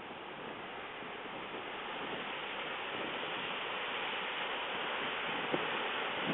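Steady rushing of a waterfall, growing slowly louder, with a faint tap about five and a half seconds in.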